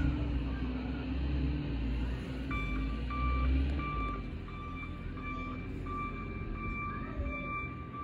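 Case 721D wheel loader's diesel engine rumbling under load as it pushes snow, easing off after about four seconds. About two and a half seconds in, its reversing alarm starts beeping at about two beeps a second.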